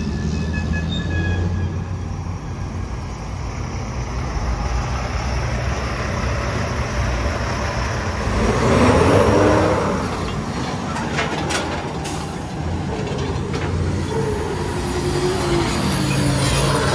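Heavy diesel dump truck running under way, a steady low engine drone that swells louder about halfway through, with a wavering whine in the later part.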